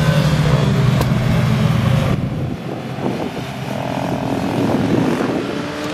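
Motorcycle engines on a race circuit: one bike runs past close by with a steady drone that sags slightly in pitch, then, after an abrupt change about two seconds in, several bikes rev up and down through a corner, swelling louder before easing off near the end.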